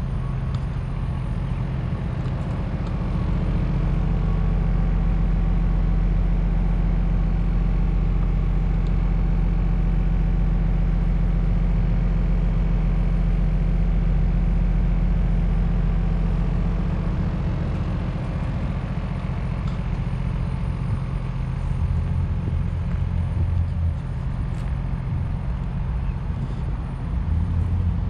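Hino 268A box truck's six-cylinder diesel engine idling with a steady low rumble, swelling briefly a couple of times near the end.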